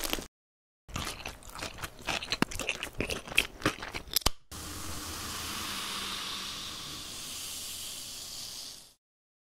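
Crinkling and clicking as a paper cutout soda can is handled and its tab worked. Then a steady fizzing hiss of carbonated cola from the freshly opened can runs for about four seconds and cuts off abruptly.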